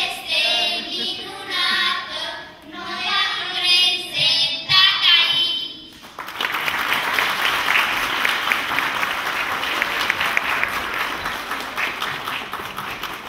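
A group of children singing together; the song ends about six seconds in and an audience breaks into applause.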